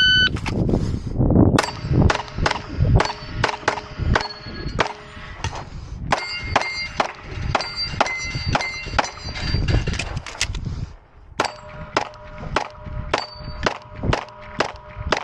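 A shot timer beeps, then a 9mm Glock pistol fires a long string of rapid shots, with steel targets clanging and ringing after many of the hits. There is a short pause about eleven seconds in before the shooting resumes.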